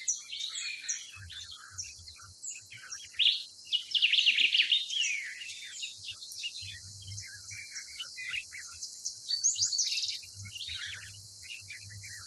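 Many small birds chirping and twittering in a busy chorus of short, high notes and quick sweeps, loudest about three to five seconds in.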